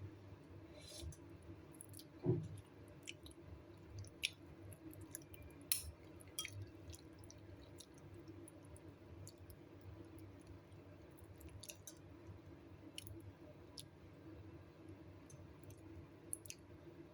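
Someone quietly eating soup: scattered light clicks and taps of a spoon against a bowl, with a duller thud about two seconds in. A faint steady low hum runs underneath.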